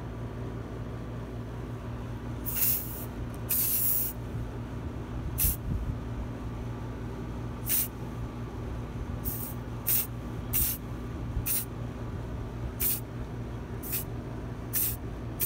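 Aerosol spray-paint can sprayed in about a dozen short, separate bursts of hiss, one about half a second long and the rest briefer, as paint is dusted onto a canvas.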